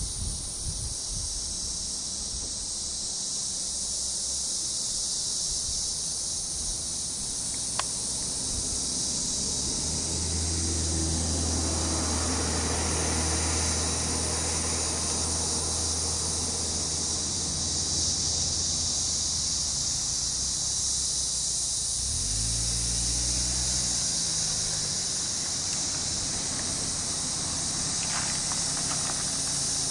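Steady, high-pitched chorus of insects. A low steady hum runs underneath from about ten to twenty seconds in, and a brief low rumble rises and falls in pitch a little after it.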